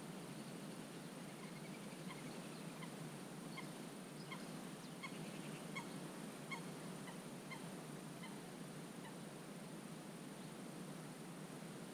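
A waterbird calling: a run of about a dozen short, nasal, honking calls, roughly two a second. They grow louder toward the middle, then fade out.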